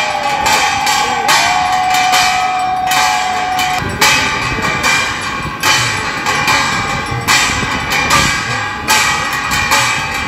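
Aarti bells ringing, struck over and over about twice a second. A long held tone sounds with them for the first few seconds.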